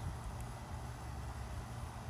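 Steady low background rumble with a faint hiss, without distinct knocks or scraping strokes.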